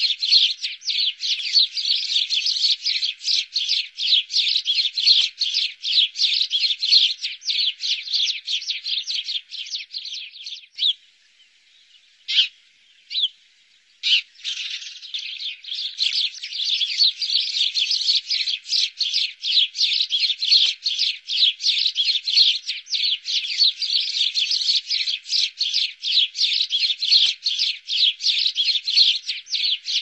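Sparrows chirping in a dense, rapid chatter, several short chirps a second. The chatter drops out for about three seconds near the middle, apart from two single chirps, then resumes.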